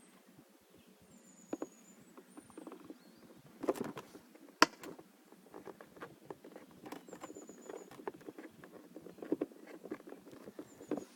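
Irregular small clicks, taps and scrapes of hand tools and a plastic air-conditioner evaporator housing being handled while its screws are taken out, with one sharp loud click a little under halfway through.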